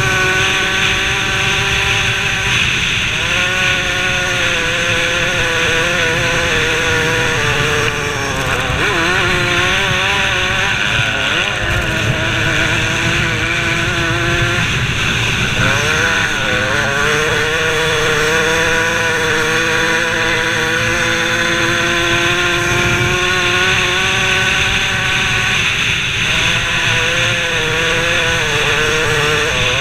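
125cc two-stroke motocross bike engine running hard at high revs, its pitch dipping and climbing again several times as the throttle is eased and reopened, with wind rush on the helmet-mounted camera.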